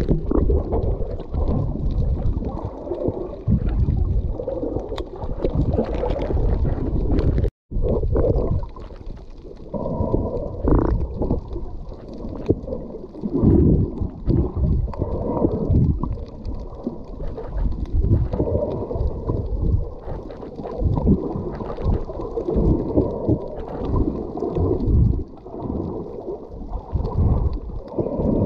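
Muffled underwater sound picked up by a camera held under the water: an uneven, low rumble of churning water with gurgles. It cuts out for a moment about seven and a half seconds in.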